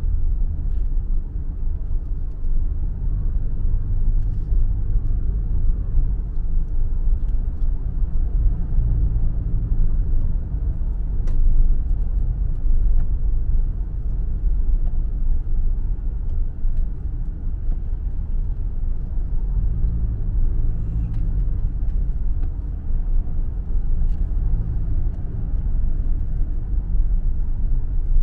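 Steady low road and engine rumble of a moving taxi, heard from inside the car's cabin.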